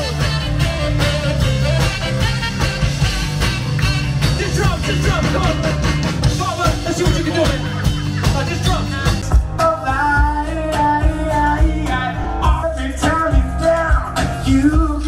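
Live band music with saxophones, electric guitar, keyboard and drums. About nine seconds in it changes to singing over upright bass and guitar.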